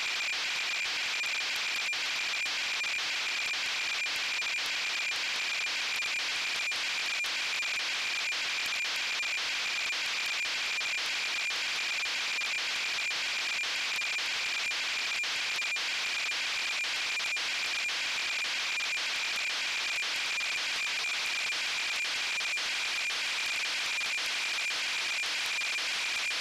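Radio receiver hiss carrying a single steady beat tone: the continuous carrier of the COSMOS 2499 satellite downlink near 435.566 MHz, kept at one pitch as the tuning follows its Doppler drift. Faint irregular ticks sit in the hiss now and then.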